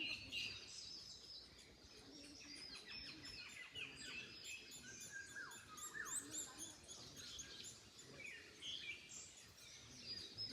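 Several wild birds chirping and singing, with many short calls and quick trills overlapping throughout, over a faint steady background hiss.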